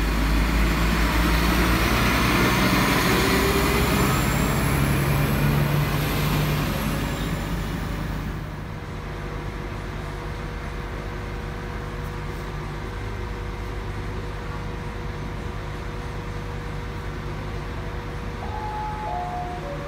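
PESA SA135 diesel railbus pulling away, its engine note and a high whine rising in pitch as it gathers speed. About eight seconds in, this gives way to a quieter steady diesel hum of another SA135 idling at the platform, with three short falling tones near the end.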